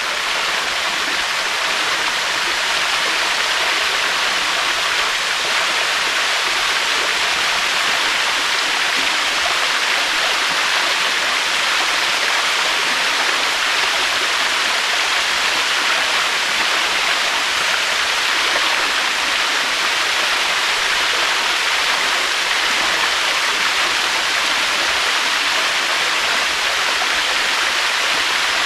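Waterfall: a steady, unbroken rush of falling water, a hissing wash without surges.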